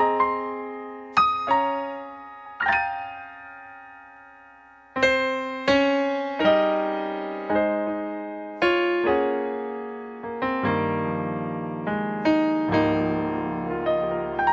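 Solo digital piano playing slow chords, each struck and left to ring out. The playing pauses about three seconds in, picks up again around five seconds, and deeper bass notes join about ten seconds in.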